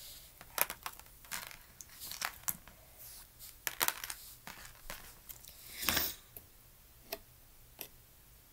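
Advent calendar packaging being handled: a string of short crinkling and tearing rustles, the longest and loudest about six seconds in.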